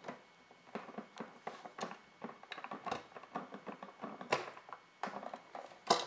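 Scattered small clicks, taps and scrapes of a screwdriver pushed into the release slots of a wall outlet's push-in wire connections and the wires being worked free, with two sharper clicks about four seconds in and near the end.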